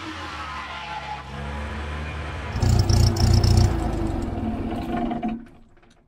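Homemade dual-blade sawmill powered by a Datsun 120Y 1200cc four-cylinder engine, running steadily. About two and a half seconds in it gets much louder and harsher for about a second, then fades away near the end.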